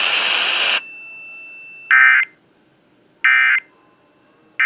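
Emergency Alert System SAME digital data tones: three short bursts, each under half a second and about 1.3 s apart, the end-of-message code that closes an EAS test broadcast. Before them, a loud hiss cuts off under a second in, leaving a faint steady whine.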